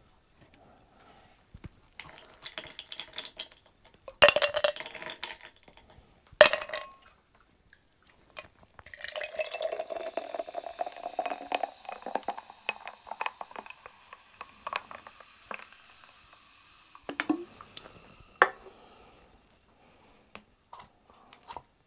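Fizzy Fanta Fruit Twist poured from a can into a drinking glass: a pour and fizz lasting about ten seconds, its tone rising slightly as the glass fills. Before the pour come two sharp knocks, the loudest sounds here, and a couple of lighter knocks follow near the end.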